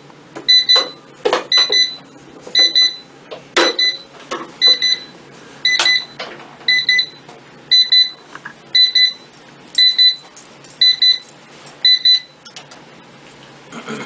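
Electronic alarm beeping, a short double beep about once a second that stops near the end, with a few sharp knocks in between.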